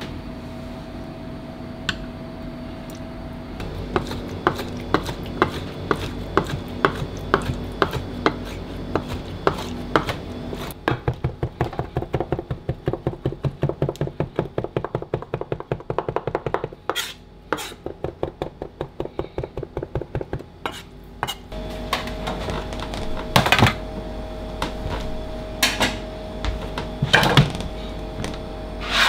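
Chef's knife chopping chicken liver on a cutting board, mincing it to a paste: repeated knife strikes, fastest about midway at roughly four a second, over a steady hum. A few louder knocks near the end.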